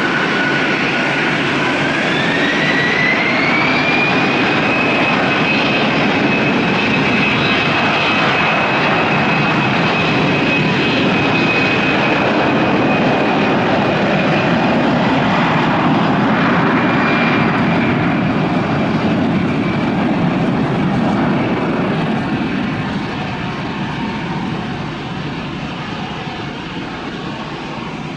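Jet airliner taking off: the engines' whine climbs in pitch over the first few seconds as they spool up to takeoff thrust, then holds steady over a loud rumble. The sound fades away in the last several seconds as the aircraft departs.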